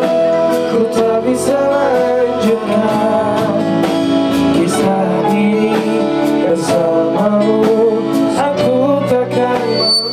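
Band rehearsal: men singing a melody into microphones over a guitar accompaniment.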